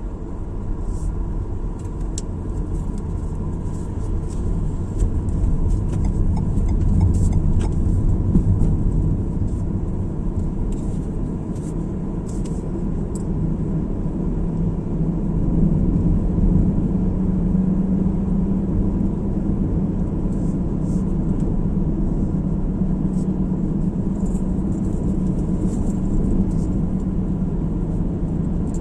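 Car driving on a road: steady low rumble of road and engine noise, swelling in the first second or so and then holding even.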